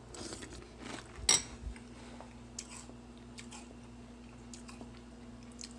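A person eating crunchy pillow-shaped cereal in milk with a metal spoon: one sharp clink of the spoon against the bowl about a second in, then faint chewing with small scattered clicks. A low steady hum sits underneath.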